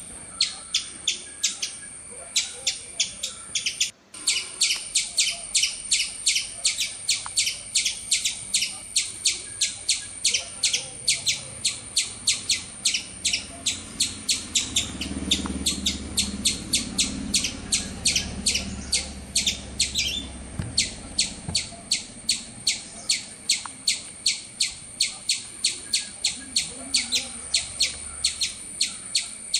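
Bird chirping in a fast, even series of short high chirps, about three a second, over a steady high-pitched whine, with a faint low rumble in the middle and a brief cut-out about four seconds in.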